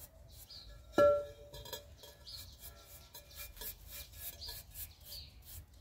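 Bristle paintbrush stroking over an unglazed terracotta pot, brushing on water-based sealant: a dry rasping in quick repeated strokes. About a second in there is a single sharp knock that rings briefly, the loudest sound.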